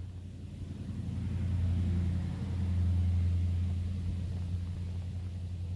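A low engine-like rumble that swells to its loudest about three seconds in and then slowly eases off.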